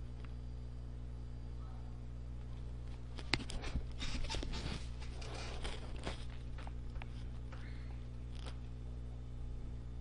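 Steady low electrical hum. A few seconds of rustling and sharp clicks come through it from about a third of the way in, with one more brief rustle near the end.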